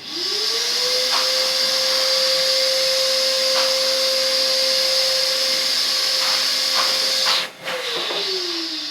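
Household vacuum cleaner switched on: its motor spins up within a second to a steady high whine over a loud rush of air. Near the end the sound cuts out briefly and the motor winds down, its pitch falling.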